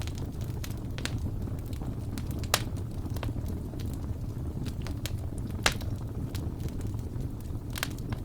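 Fire burning in a steel fireplace, crackling with scattered sharp pops over a steady low rumble; the two loudest pops come about two and a half and five and a half seconds in.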